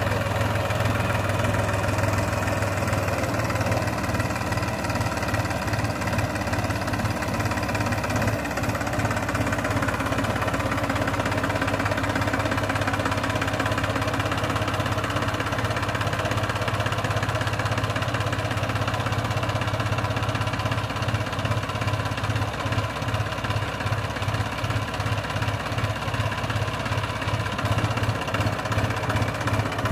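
New Holland 4710 tractor's three-cylinder diesel engine running steadily under load while pulling a disc implement through ploughed soil, with a strong, even low hum.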